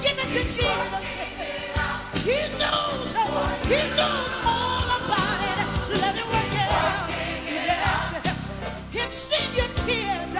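Live gospel music: a woman's solo voice singing into a microphone in sliding, ornamented lines over instrumental backing, with a choir behind her.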